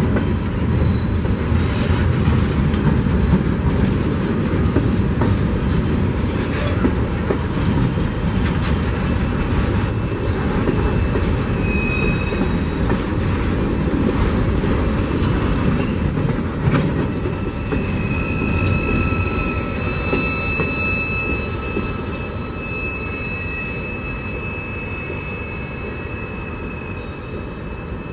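Freight cars rolling past on the rails, with a heavy wheel rumble and rail clatter. From about two-thirds through, thin high wheel squeals ride over it as the rumble fades away.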